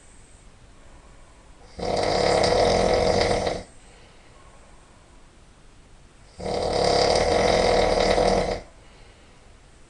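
A person snoring really loud: two long snores, each about two seconds, coming at a slow even pace with quiet gaps between.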